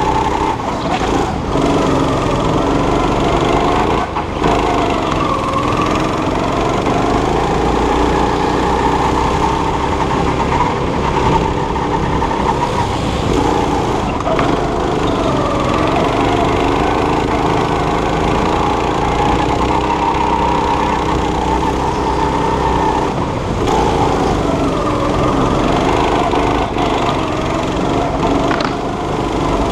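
Go-kart engine running hard through a lap, its pitch dropping briefly several times into corners and climbing again as it accelerates out.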